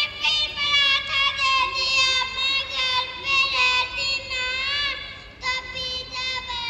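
A child's high voice singing, a run of held notes that bend in pitch, with a short break about five seconds in.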